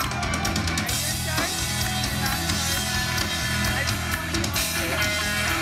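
Live rock band playing an instrumental passage: drum kit with steady cymbal hits and electric guitar over a sustained bass line.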